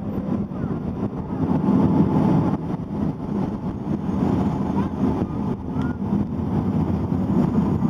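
Bernina Railway train running, heard from on board: a steady rumble of wheels on the rails.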